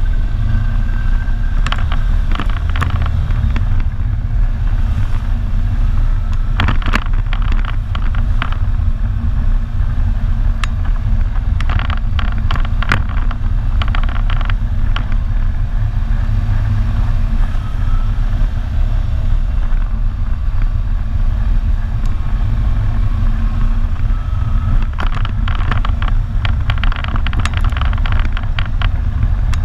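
ATV engine running under way with a steady low rumble and a faint wavering whine, and clusters of short knocks and rattles as the machine rides over bumps.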